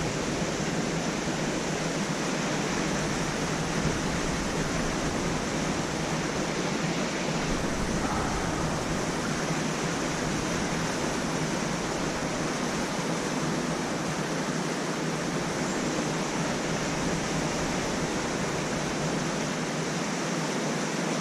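Steady rushing of flowing water, an even hiss that holds unchanged throughout.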